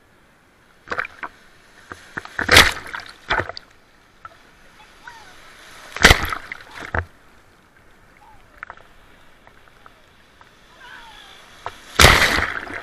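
Water splashing and sloshing in irregular short bursts, about six in all, the longest and loudest near the end.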